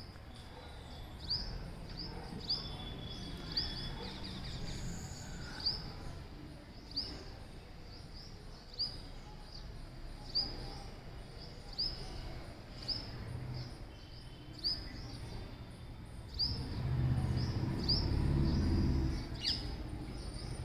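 A bird calling over and over, a short high chirp about once a second, over a low background rumble that grows louder for a few seconds near the end.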